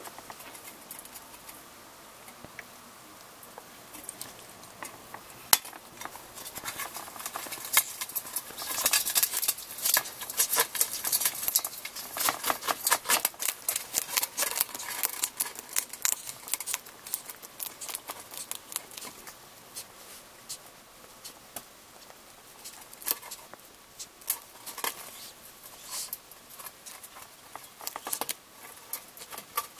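Golden hamster crunching a flat-horn hissing cockroach inside a metal tin: rapid, irregular crisp clicks and snips of the insect's hard shell being bitten through, thickest in the middle stretch and sparser toward the end.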